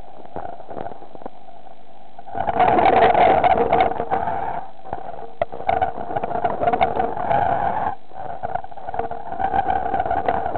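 A diver's breathing underwater: three long rushing swells of exhaled bubbles a few seconds apart, over a steady electrical hum.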